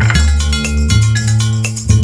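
Upbeat background music with a steady beat over a bass line.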